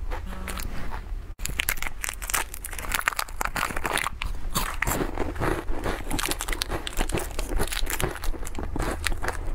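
Thin plastic snack wrappers crinkling and tearing open, a dense run of crackles from about a second and a half in. A short electronic tone sounds just after the start.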